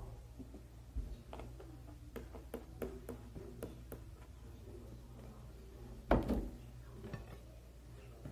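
Handling of a plastic bottle over a glass jar: a run of light clicks and taps, then one louder knock about six seconds in.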